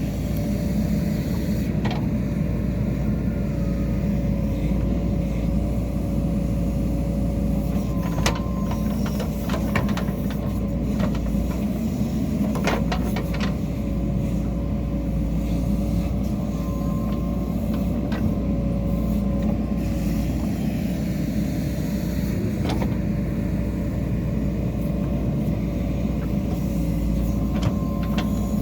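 Diesel engine of a JCB 3DX Super backhoe loader running steadily under work, with a low rumble and a steady whine. A few sharp knocks come through, around a third of the way in and again near the middle.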